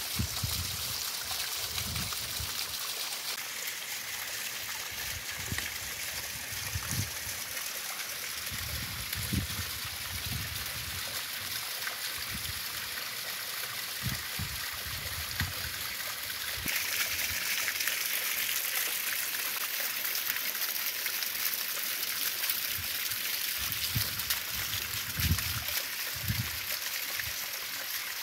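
Shallow mountain stream trickling and running over limestone rock in small cascades, a steady splashing hiss. About two-thirds of the way through it becomes brighter and slightly louder.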